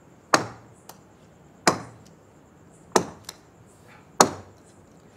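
A ball bounced on a wooden stage floor four times, about once every 1.3 s. Each bounce is a sharp smack that rings briefly in the hall, with a couple of fainter ticks in between.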